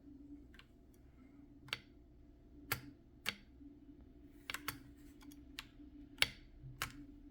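Keys on an Akko 5075B Plus V2 mechanical keyboard pressed one at a time, about ten separate clicks at uneven, slow intervals.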